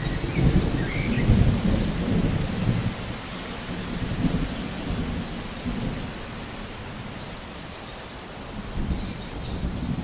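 Heavy rain falling steadily on foliage, with low rolling thunder rumbling loudest in the first three seconds, easing off, then swelling briefly again near the end.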